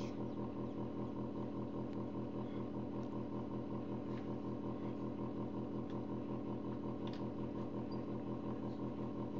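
Forced-air incubator's fan motor making a loud steady hum with a fast, even pulsing.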